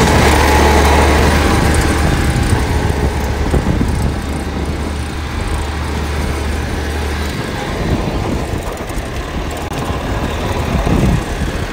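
Massey Ferguson 1130 tractor's diesel engine running loud through a straight pipe with no muffler, as the tractor is driven. It is loudest at the start and eases slightly after the first couple of seconds.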